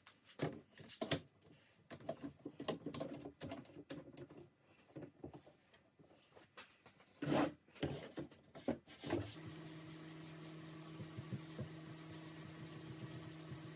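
Scattered light knocks and clicks of objects being handled, then a steady low electric hum starts about nine seconds in and keeps running.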